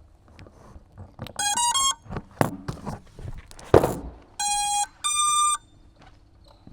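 Startup beeps from a quadcopter's ESCs sounding through its brushless motors: a quick run of stepping tones about a second and a half in, then two longer steady beeps past the middle, the tones the drone plays when its battery is plugged in. Sharp handling clicks and knocks fall in between, the loudest at about four seconds.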